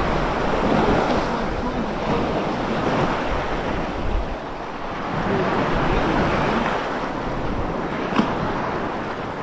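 Shallow sea water lapping and washing at the shore of a pebble beach, with wind buffeting the microphone. The wash swells and eases, and there is one short click near the end.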